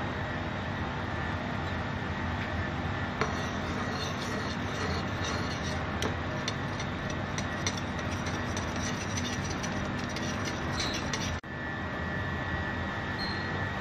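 Steady mechanical drone with a thin constant whine. From about three seconds in, a spoon clicks and scrapes against the bowl as the oil-and-pepper dressing is stirred, stopping when the sound cuts out briefly near the end.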